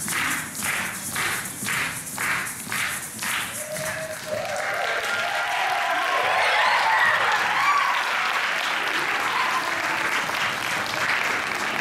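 A few seconds of music with a steady beat, about two a second, then audience applause mixed with cheers taking over about four seconds in.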